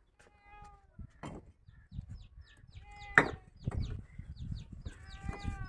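A cat meowing three times, each a drawn-out cry, while small birds keep up quick high chirps. A few sharp knocks come in between, the loudest a little after halfway.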